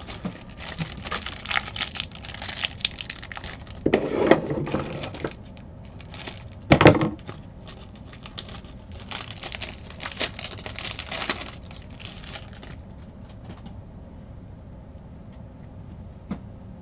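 Trading card pack wrapper being torn open and crinkled by hand, in several spells of rustling, with a sharp knock about seven seconds in; the handling goes quieter near the end.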